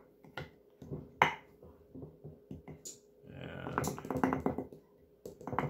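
Metal measuring cup scooping flour from a glass jar: light clicks and taps of metal on glass, with a denser scraping rustle through the flour from about three and a half seconds in.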